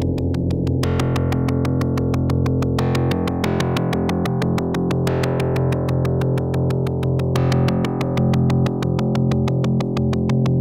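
2hp Pluck plucked-string synthesizer module, triggered by a 2hp Rnd random module, repeating a low plucked tone in a quick, even ticking pulse. About every two seconds a brighter pluck comes in with randomly varied overtones that fade away.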